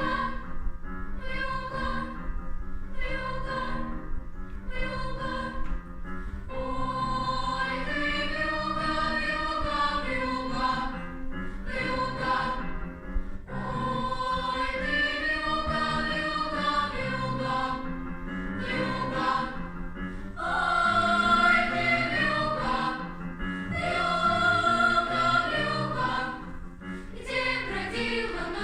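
A choir singing, with long held notes in phrases that swell and fade.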